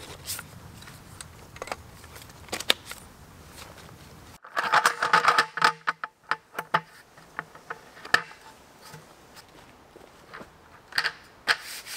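Aluminium slats of a Mission Mountain roll-up camp table clicking and knocking as the tabletop is unrolled and laid onto its folding frame, with a dense clattering rattle about halfway through.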